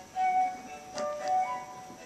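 Instrumental music playing a melody of held notes in short phrases, with a short click about a second in.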